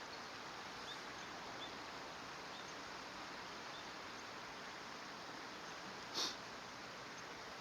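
Common kingfisher giving a single short, shrill call about six seconds in, over a steady faint hiss.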